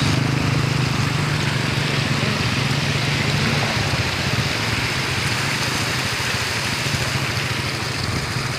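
Motorcycle engine running with a steady low hum, under the even rushing hiss of floodwater pouring over the edge of the road.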